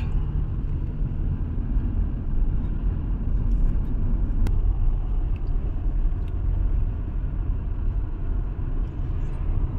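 Car driving along, heard from inside the cabin: a steady low rumble of road and engine noise. There is a single faint click about four and a half seconds in.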